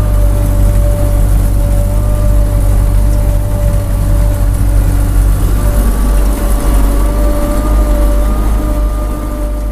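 Belarus MTZ-95 tractor's diesel engine running steadily while pulling a harrow, heard from inside the cab, with a deep rumble and a steady whine over it. A second, higher whine joins about six seconds in.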